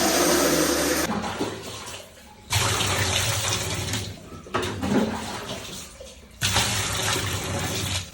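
Water jet spraying onto washing machine parts to rinse out dirt, in about four bursts of a second and a half each. Each burst starts suddenly, with a short break between them.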